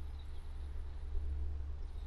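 Outdoor background: a steady low rumble with a few faint, high chirps.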